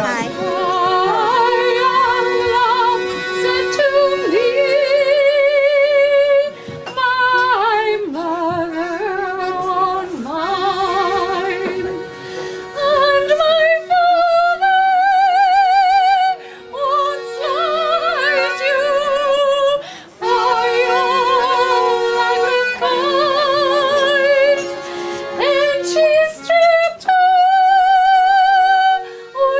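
Music: a singing voice holding long notes with heavy vibrato over steady sustained accompanying notes, with short breaks between phrases.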